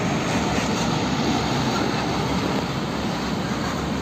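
Hino fuel tanker truck's diesel engine running as the truck drives slowly past, a steady low rumble with road noise.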